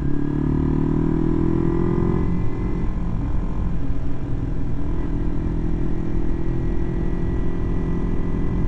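Kawasaki Ninja 250's parallel-twin engine running while riding. Its pitch climbs as the bike accelerates over the first two seconds or so, then holds steady at cruising speed, with wind rush over the microphone.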